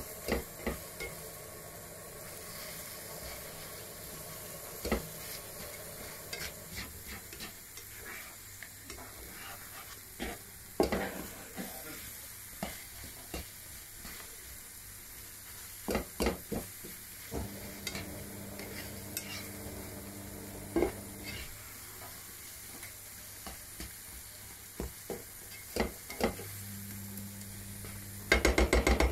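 Eggs, tomatoes and spinach sizzling in a frying pan while a spatula stirs and scrapes through them, with scattered knocks of the spatula against the pan. A quick run of knocks comes near the end.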